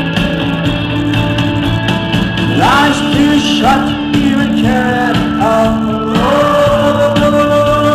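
A live rock band playing: steady guitars and bass, with a sung vocal line that comes in about three seconds in as a series of upward-swooping phrases.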